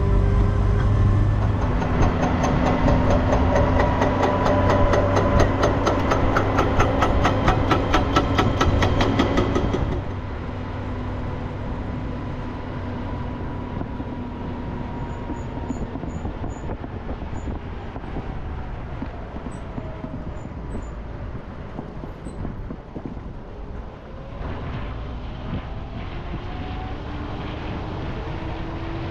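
A motor vehicle's engine running while it drives, loud with a fast even pulsing for about the first ten seconds. Then the sound drops suddenly to a quieter, steadier running noise.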